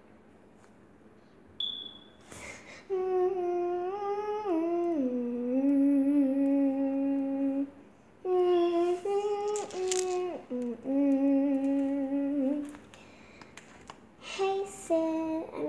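A girl humming a slow wordless tune in long held notes, sliding from one pitch to the next, in two phrases with a short break about eight seconds in.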